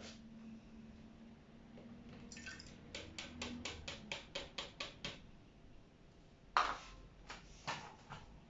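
Kitchenware clicking and clinking: a quick even run of about a dozen light clicks, then one louder clink that rings briefly, and a few more scattered ticks.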